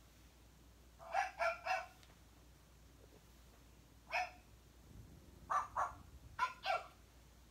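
Glam Girl Barbie interactive puppy plush playing recorded puppy barks: short high-pitched yaps in quick groups of one to three, about nine in all.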